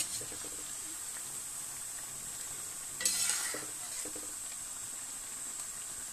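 Khajur dough pieces deep-frying in hot oil in an iron kadhai: a steady sizzle, with a slotted spoon stirring them and lightly clinking against the pan. About three seconds in the sizzle surges briefly as the pieces are turned.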